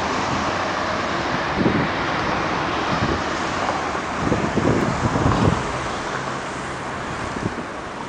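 City street traffic, with cars driving past. Wind buffets the microphone a few times, loudest in the middle.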